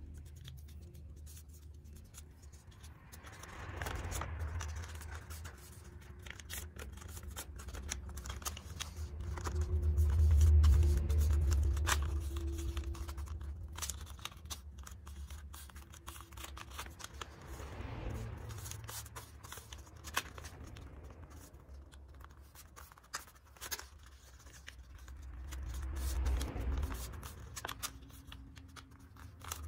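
Paper being folded and creased by hand: crackling, rustling and scraping as fingers press the pleats flat against a table. Several slow low rumbles come and go, the loudest about ten seconds in.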